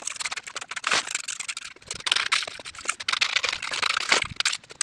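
Gritty scraping and rattling of wet concrete being worked with hand tools, in a dense run of irregular strokes.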